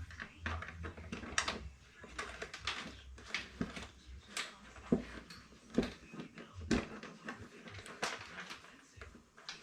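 Irregular small clicks, taps and rustles of hands working a turn signal mount and its small nut and lock washers into a motorcycle's front panel.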